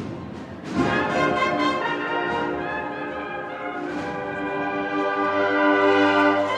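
Cornet-and-drum procession band playing live: brass holding sustained chords, with a new loud entry and a drum hit about a second in and a swell near the end.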